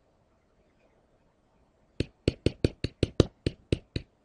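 Near silence for about two seconds, then a rapid run of sharp computer mouse clicks, about five a second, stepping down through the rows of a TI-84 Plus calculator emulator's table of values.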